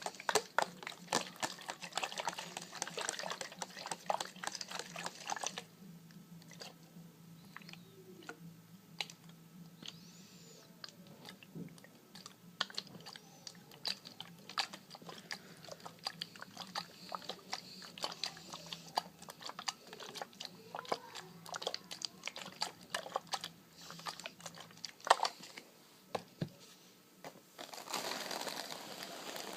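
Close-up relaxation-style trigger sounds: a dense run of small clicks and crinkles, thinning out after about six seconds to scattered taps, with one sharper knock about 25 seconds in and steady crinkling taking over near the end.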